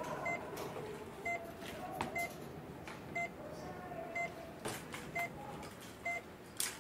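Electronic patient-monitor beep repeating evenly about once a second, each a short high tone with a lower one beneath it. Near the end a sharp click, as of the door's latch.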